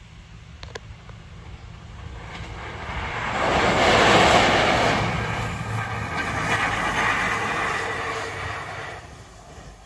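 KUJR Arjuna track-recording rail car passing through at about 95 km/h, its wheels running on the rails. The noise builds, is loudest about four seconds in as the car goes by, then fades away over the following seconds.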